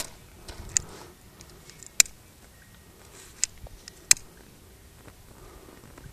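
About five sharp, brief clicks at irregular intervals over a faint background.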